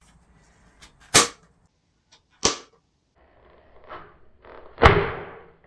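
Party poppers going off: three sharp pops spaced a second or more apart, the last one the loudest, with a short crackling tail.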